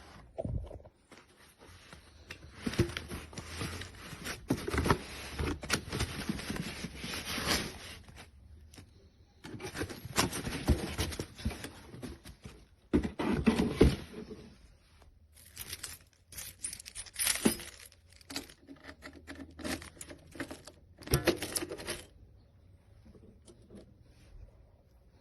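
Handling noises: scraping, rustling and small metallic clinks and clicks as objects are moved about by hand, in several stretches with short pauses between them.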